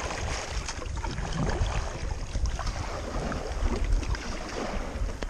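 Wind buffeting the microphone over choppy sea, with small waves splashing and slapping against the bow of a sit-on-top kayak.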